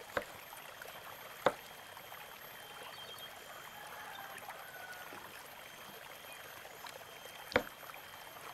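Kitchen knife cutting fresh turmeric root on a wooden cutting board: three sharp knocks of the blade hitting the board, just after the start, about a second and a half in and near the end, over a steady hiss.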